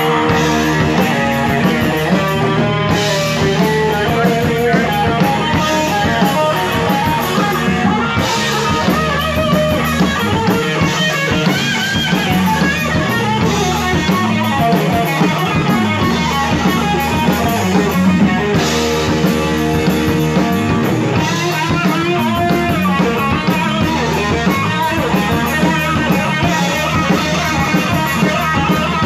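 Live rock band playing loudly: electric guitar over a drum kit, with no break.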